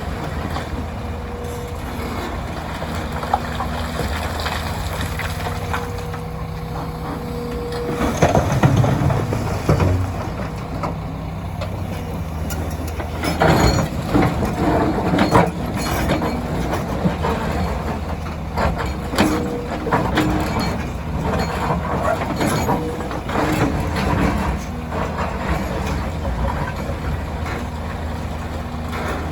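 Hyundai 300LC hydraulic excavator working a load of quarry aggregate, its diesel engine running steadily under a thin whine that stops about eight seconds in. Rough clattering of gravel and rock comes twice, about eight seconds in and again around thirteen to sixteen seconds, as material is scooped and tipped into a dump truck's bed.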